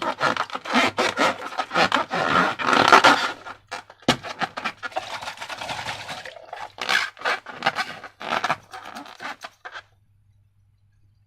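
Slime being squished and worked by hand: sticky squelching and scraping with many sharp clicks and pops. It dies away shortly before the end.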